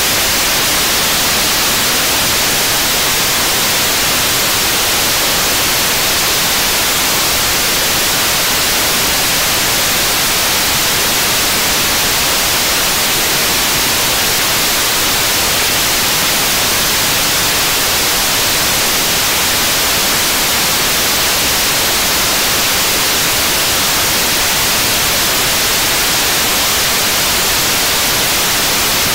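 75-tonf kerosene–liquid-oxygen rocket engine firing at steady thrust during a long-duration burn: a loud, unbroken rush of noise, brightest in the upper range, with no change in level or pitch.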